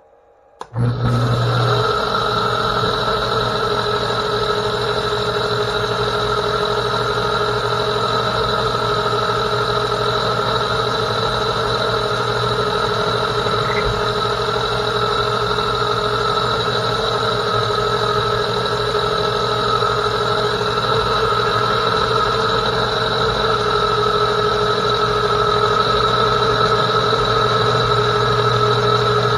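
Metal lathe starting up about a second in, then running steadily with a constant hum and several steady tones. A round RPMT carbide insert takes a turning pass on a metal bar in the chuck.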